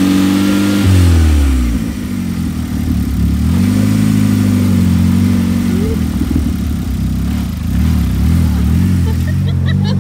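A vehicle engine running; its pitch drops about a second in, climbs again a couple of seconds later, then mostly holds steady.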